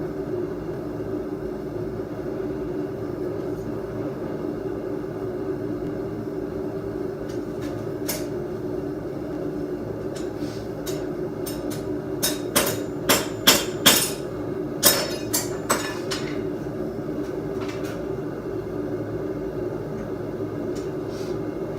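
A hammer striking hot steel on an anvil: a quick run of about seven ringing blows a little past halfway, with a few lighter taps before them, over the steady drone of the forge running.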